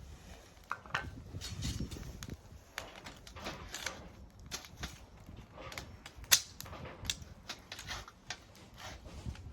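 Wood fire crackling and popping: irregular sharp cracks, with one loud pop about six seconds in.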